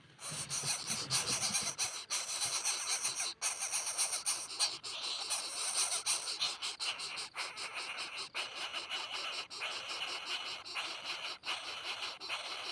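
Greater coucal nestlings hissing: a dense, breathy hiss that cuts in suddenly at the start and goes on with brief gaps.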